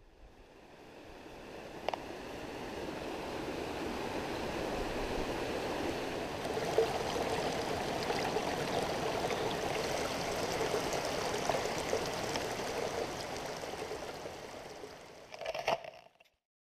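Mountain stream running steadily, fading in at the start and fading out near the end, with a brief clatter just before it dies away.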